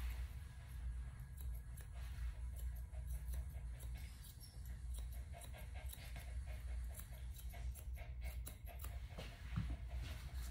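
Grooming scissors snipping through a small dog's coat in repeated short cuts, over a steady low hum.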